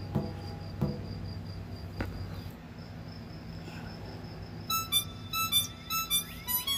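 An insect chirping in a steady series of high, even pulses, about four or five a second, fading after about two and a half seconds, with a few soft knocks in the first two seconds. Background music starts near the end.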